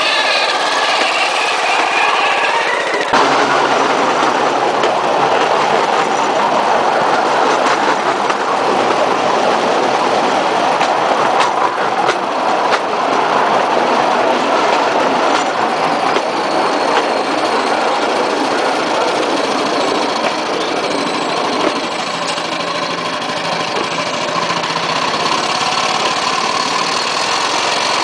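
Bamboo train (norry) running along the rails, driven by its small engine: a steady engine drone mixed with rattling from the bamboo platform and wheels and with rushing air, and an occasional click. The sound changes about three seconds in, when the ride settles into this steady noise.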